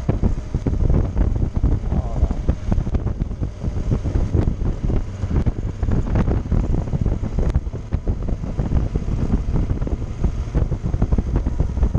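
Wind noise buffeting the microphone of a moving motorcycle, with engine and road noise underneath; a heavy low rumble that flutters unevenly.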